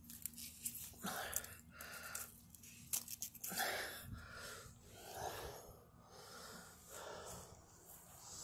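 A person breathing close to the microphone, in and out about once a second, with a few light clicks in the first second.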